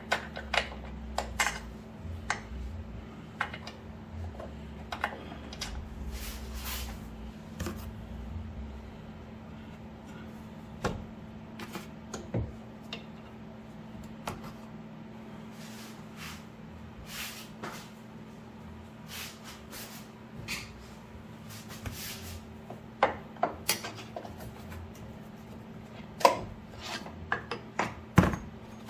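Scattered metal clinks, clunks and knocks of tools and parts being handled during hands-on work on a car's rear suspension, over a steady low hum. The knocks come irregularly, with a tighter cluster of sharper ones near the end.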